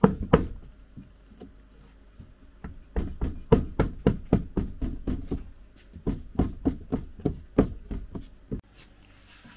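A hand patting sand down on the floor of a glass terrarium: two knocks at the start, then a quick run of dull knocks, about four a second, that stops near the end.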